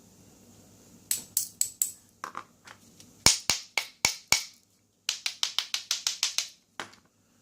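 Sharp metallic clicks and taps from a small pin-tumbler lock being taken apart. They come in irregular groups, ending in a fast run of about ten clicks.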